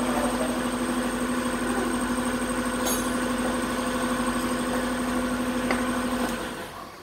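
A machine running with a steady, even hum, which dies away near the end.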